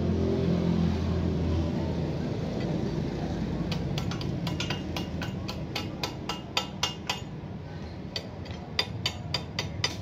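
Arc welding: a steady electric buzz for the first couple of seconds that stops, then from about four seconds in a run of sharp, irregular clicks and crackles, several a second.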